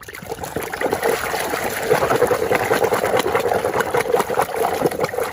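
Water running and splashing over a plastic toy as it is rinsed clean of mud, with small clicks and knocks of the toy being handled in the water.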